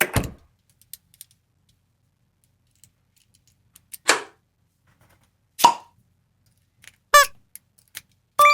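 A string of short, separate cartoon sound effects, a second or more apart, with silence between them. One, about seven seconds in, has a wobbling pitch, and near the end comes a brief ringing tone.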